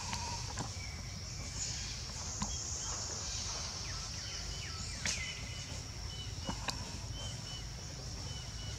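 Forest ambience: a steady high-pitched insect drone, with a few short bird whistles, one falling bird call about five seconds in, and a few soft clicks.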